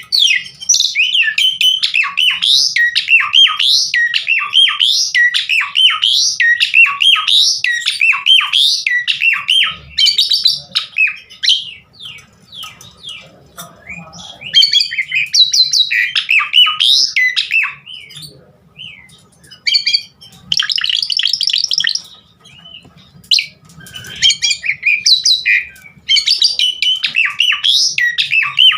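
Asian pied starling (jalak suren) singing vigorously, a long, varied song of fast whistled and chattering phrases packed with mimicked calls. It comes in bursts with a few short pauses.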